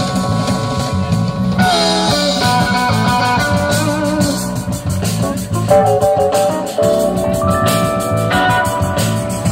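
Live rock band playing: electric guitar lines over bass, drum kit and keyboard, with a steady drum beat.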